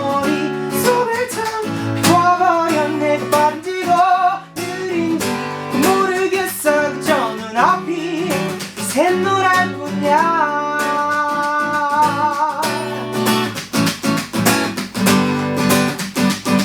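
A male voice singing a pop melody over strummed acoustic guitar, holding one long note about ten seconds in. From about thirteen seconds the guitar strumming carries on without the voice.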